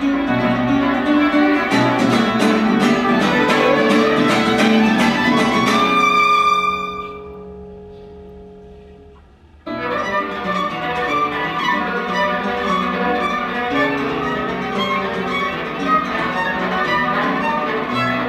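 Violin and acoustic guitar duo playing live. About six seconds in, the music breaks off and a last chord rings out and fades for roughly three seconds, then both instruments come back in together and play on.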